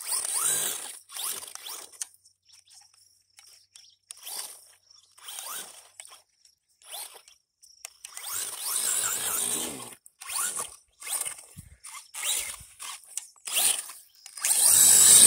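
5900kv brushless electric motor of a 1/16 RC monster truck whining in repeated bursts of throttle, its tyres churning and spraying loose sand, with short quiet gaps between bursts. The loudest bursts come at the start and near the end.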